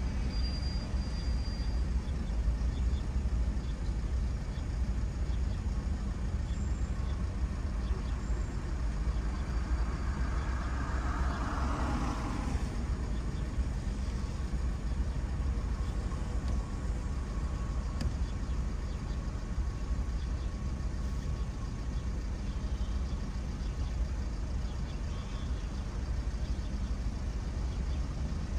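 Car driving through city streets: a steady low rumble of engine and road noise, with a swell of louder noise about ten to thirteen seconds in that fades away again.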